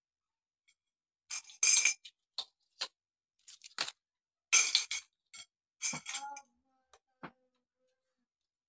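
Metal tubes of a shoe rack clinking and rattling against each other and their plastic joints as the rack is handled and fitted together: a run of short, sharp clatters, loudest about a second and a half in and again near the middle, with a brief metallic ring about six seconds in.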